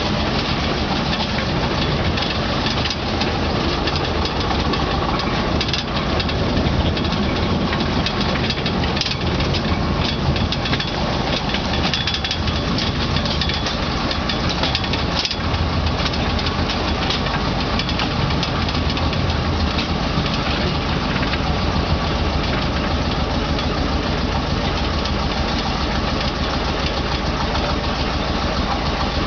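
Engine of a 600 mm gauge field railway train running steadily as the train rolls along, with a few short knocks from the wagons on the track.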